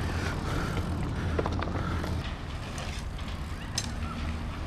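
Mountain bike rolling over a packed-dirt jump track: tyre noise and rattling of the bike, with a few short knocks, over steady wind rumble on the microphone.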